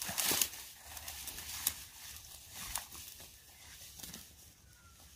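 Footsteps and rustling through dry grass and scrub, irregular and getting fainter as the walker moves away.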